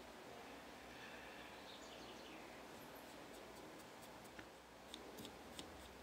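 Near-silent room tone, with a run of faint light ticks in the second half as a small paintbrush and fingers work over a vinyl toy figure.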